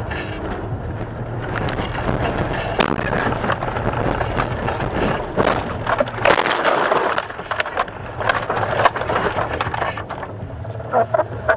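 Cabin dash-cam sound of a car sliding off a snowy road into a field: the engine runs under occasional knocks, then a loud crunching, scraping burst about six seconds in as the car ploughs through roadside branches and snow, followed by scattered clatter as the engine sound drops away.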